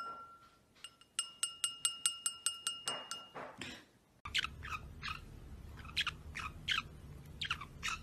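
A wine glass is tapped rapidly by a green-cheeked conure's beak, about five taps a second for roughly two seconds, each tap ringing with a clear tone. In the second half, a small parrot gives a string of short, quickly falling chirps over a low hum.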